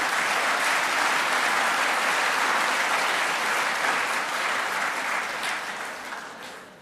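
Audience applauding, steady at first and dying away over the last second or two.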